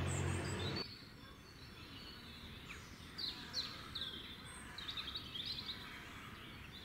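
A steady hiss cuts off about a second in. Then faint birds chirp in short, quick, falling notes over a quiet outdoor background, most often in the middle of the stretch.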